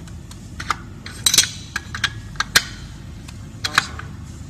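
Steel open-end wrench clinking against the axle nut and metal fork of an electric scooter's hub-motor wheel as it is fitted and worked to loosen the nut: a string of sharp metallic clicks, loudest about a second and a quarter in and again about two and a half seconds in.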